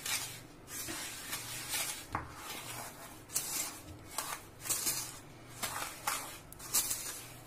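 Wooden spoon stirring powdered sugar into roasted gram flour in a metal bowl: repeated gritty scraping strokes against the bowl, about one or two a second.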